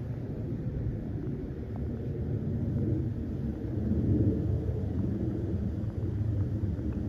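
Low, steady rumble of aircraft engines, swelling slightly about four seconds in.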